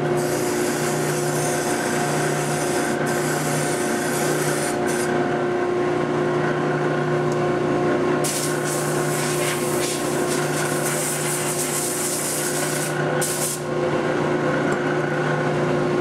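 Bench buffing machine running with a steady hum while a buff rake is held against the spinning wheel, a harsh scraping hiss, raking buffing compound off the wheel's edges. The scraping comes in two spells, over the first five seconds and again from about eight to thirteen seconds in.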